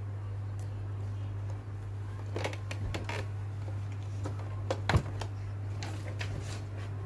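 Handling of a Silhouette Portrait 3 cutting machine's plastic lid and a paper sticker sheet: a few clicks and rustles about two and a half to three seconds in, and a sharper knock about five seconds in, over a steady low hum.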